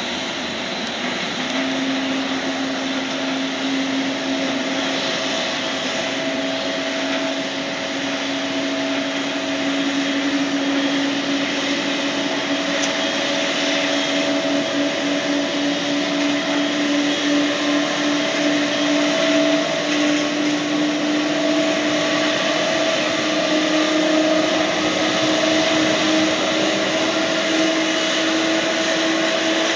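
Pratt & Whitney PW4000-series turbofan on a Boeing 777 starting up. It makes a slightly hard mid-range growl that rises slowly and steadily in pitch as the engine's revs climb.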